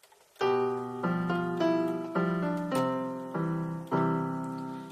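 Electronic keyboard played with a piano sound: a steady run of chords, a little under two a second, starting about half a second in, each one ringing and fading before the next.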